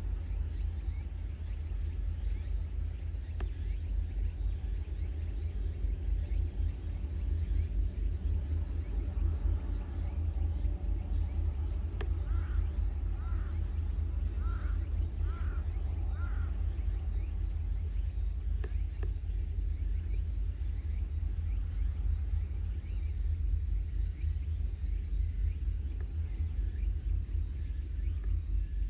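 Low, fluttering rumble of wind on the microphone. About halfway through, a bird gives five short chirps.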